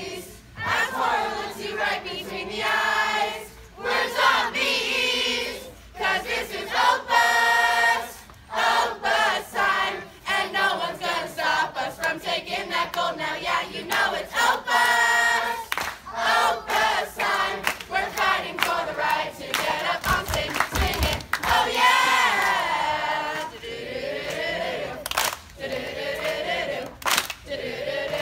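A group of children and adults singing a song together in unison, in short phrases.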